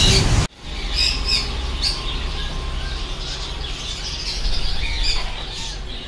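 Parrots calling: a few short, high squawks and chirps about a second in and again near five seconds, over a low steady hum.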